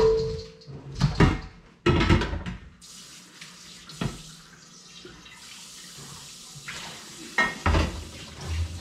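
A metal pot knocking and clanking against a kitchen sink as the parboiling water is drained off pork trotters, followed by water running steadily into the sink. A couple more knocks come near the end.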